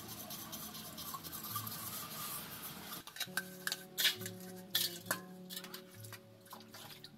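Hands scrubbing brass pooja vessels with wet mud, a rough rubbing sound. About three seconds in, background music starts, and a copper plate knocks and clinks several times against other metal vessels.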